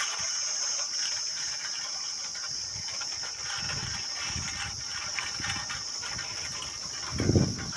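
Steady high-pitched chirring of insects such as crickets, with scattered faint scratchy noise and a short low sound about seven seconds in.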